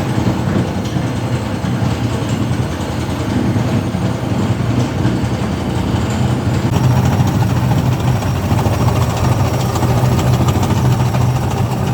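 Washing machine drum spinning with a loud, steady hum and dense rattling, a little louder about seven seconds in. This is the abnormal spin noise that was traced to a loose screw at the drum's balancer, its mounting cracked and the hole worn wide.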